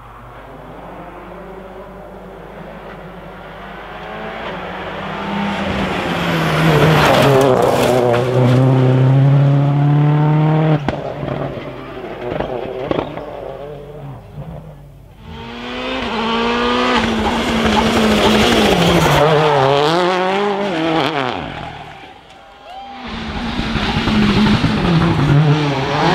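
Rally cars at full throttle, engines revving hard and rising and falling in pitch through gear changes and lifts as they come by. There are three loud passes with quieter gaps between them.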